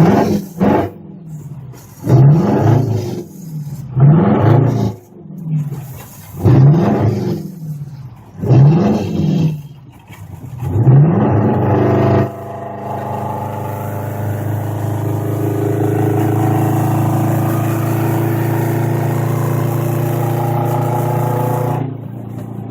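A 1980 GMC General's straight-piped 8V71 Detroit Diesel two-stroke V8, revved up and back down about six times. It then holds a steady, higher speed for about ten seconds and drops off near the end.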